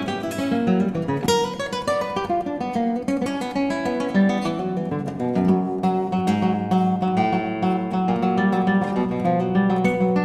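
Background music: acoustic guitar, with quick plucked notes and strums.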